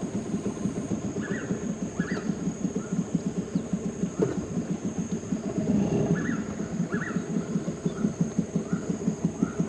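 A small engine running steadily with a rapid, even putter. Short repeated bird chirps and a steady high insect drone go on over it.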